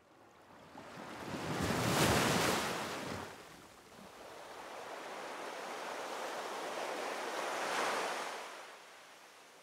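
Waves washing in: a rushing surf noise that swells and ebbs twice, loudest about two seconds in and again near eight seconds, then fades away.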